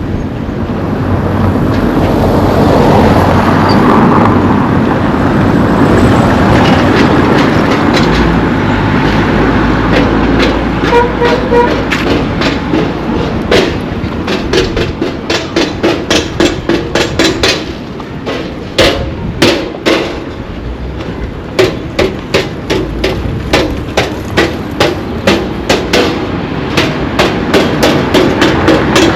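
A steady rush of outdoor noise, then, from about ten seconds in, a long run of sharp rhythmic knocks, about two or three a second.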